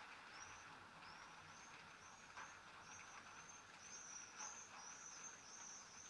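Faint high-pitched bird chirps, short arching notes repeated every half second or so and coming thicker in the second half, over a soft steady hiss.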